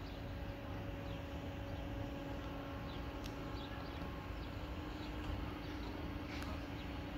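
Outdoor ambience: a steady low hum and rumble, with small birds chirping on and off and a couple of faint clicks.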